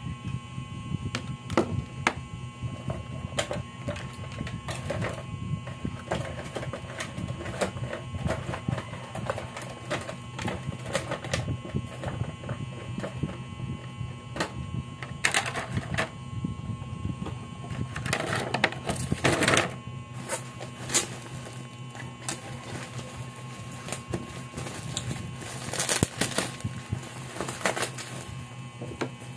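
Plastic packaging and bubble wrap crinkling and rustling as items are unpacked, with many small clicks and knocks from handling, and several louder bursts of crinkling.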